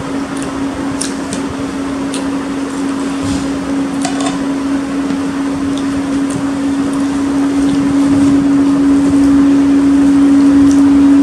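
A steady machine hum with one droning tone, growing slowly louder, with a few faint clicks over it.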